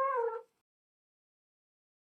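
The end of a long cat meow, dipping slightly in pitch and cutting off about half a second in, followed by dead silence.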